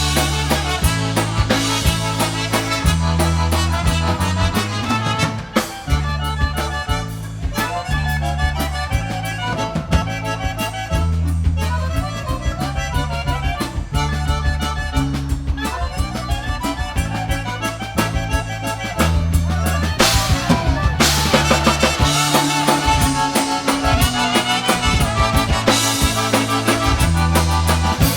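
Live Polish polka band playing an oberek, with accordion leading over drum kit and a pulsing bass line. The band grows fuller and louder about twenty seconds in.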